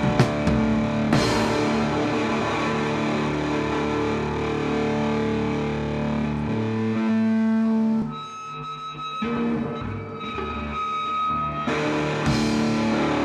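Live rock band playing, with ringing electric guitar chords held out. About eight seconds in it drops to a thinner passage, then comes back loud near the end.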